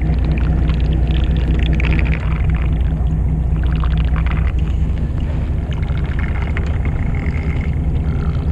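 A fishing boat's engine running with a steady low hum, with light handling clicks over it.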